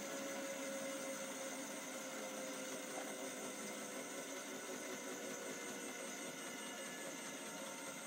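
Hotpoint NSWM 843C washing machine with an inverter motor, spinning fast on its final 1200 rpm spin. A steady whirring rush carries a faint whine that drifts slightly lower in pitch.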